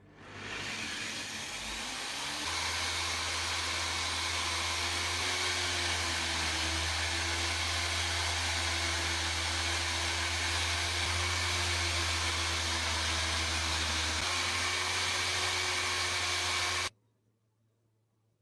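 A small electric motor-driven tool running steadily with a loud rushing, airy noise and a low hum. It spins up over the first couple of seconds and stops abruptly near the end.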